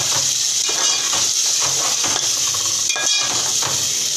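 Chicken and blended yogurt-tomato masala sizzling in hot oil in a metal pot, stirred with a metal spoon that scrapes against the pot several times.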